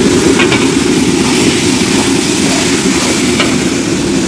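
Gas wok burner running with a steady low rush of flame under a large iron wok of noodles, with a couple of light clicks from the ladle stirring in the wok, about half a second in and again near the end.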